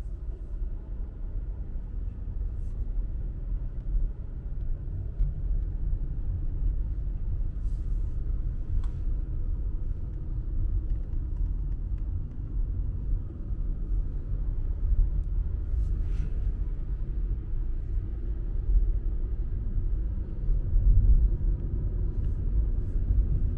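Steady low rumble of a car driving along the road, engine and road noise.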